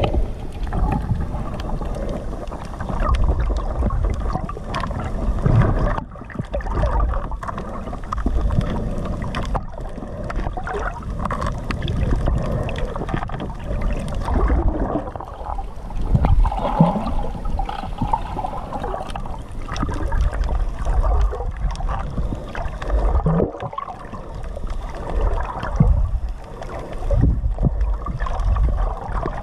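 Muffled underwater water noise: a low, uneven rumbling and gurgling of moving water, heard through a GoPro's waterproof housing while it is submerged.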